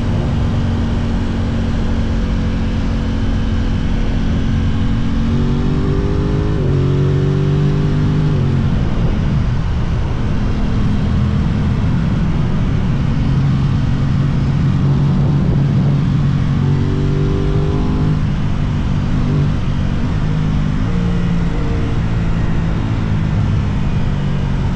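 Aprilia RS660 parallel-twin motorcycle engine running under load on the road, its pitch climbing and dropping back twice as it revs and shifts, over steady wind rush.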